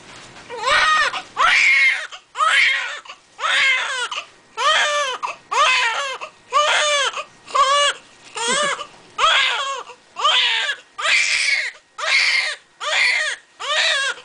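Newborn baby crying hard: a steady run of loud wails, about one a second, with short breaths between them.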